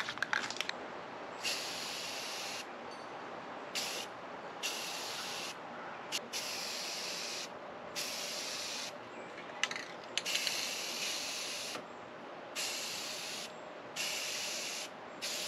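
Aerosol spray-paint can spraying Hunter Green enamel in a series of hissing passes, each a second or two long with short breaks between, as a wooden transom is coated.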